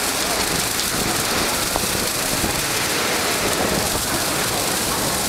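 Steady, dense hiss of outdoor noise with no distinct events.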